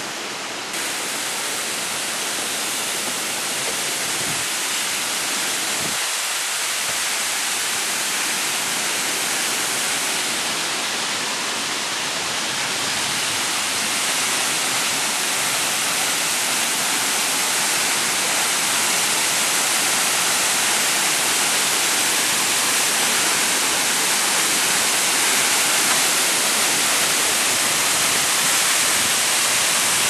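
A waterfall about 20 m high, rushing steadily, the noise slowly growing louder.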